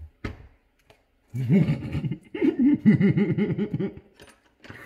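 A man laughing hard in two long runs of rapid, pitched ha-ha pulses, about five or six a second, starting about a second in.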